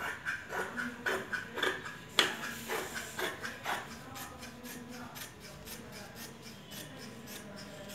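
Large tailor's scissors cutting through folded cloth, a snip with each stroke of the blades, about two a second, with one sharper click about two seconds in. The snips grow fainter in the second half.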